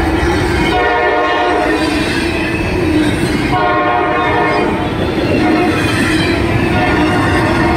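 Freight train of double-stack well cars rolling past: a steady rumble and wheel noise on the rails. The locomotive horn, already up ahead, sounds two blasts of about a second each, one about a second in and one about four seconds in.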